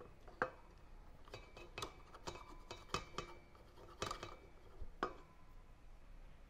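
A cup of oil poured into a stainless steel mixing bowl, with a handful of faint, irregular clinks and taps from the measuring cup against the bowl.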